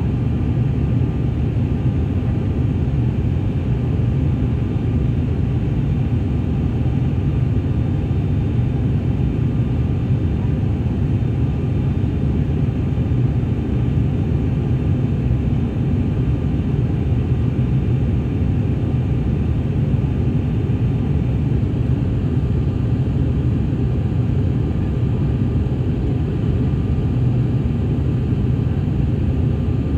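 Steady low drone of an ATR 42's turboprop engines and propellers, heard inside the cabin during the climb after takeoff, with faint steady tones above it.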